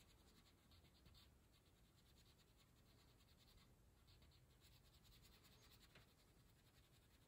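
Faint scratching of a wax crayon colouring on paper in short back-and-forth strokes.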